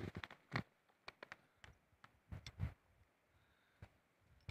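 Faint, irregular crunching and clicking of footsteps in deep fresh snow, with the strongest steps about half a second in and around two and a half seconds in.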